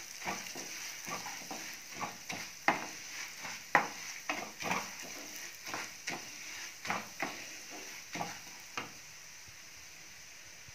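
Spatula stirring and scraping dals and whole spices frying in hot mustard oil in a nonstick pan, over a steady sizzle. The stirring strokes stop about nine seconds in, leaving only the sizzle.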